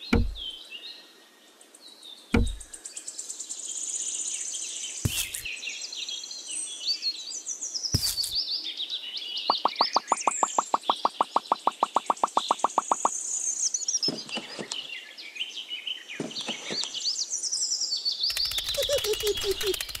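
Birds chirping and singing throughout, with several sharp knocks as clay hut pieces are set down on sand. Midway there is an even pulsing sound of about ten pulses a second for some three seconds, and near the end a short crackling burst.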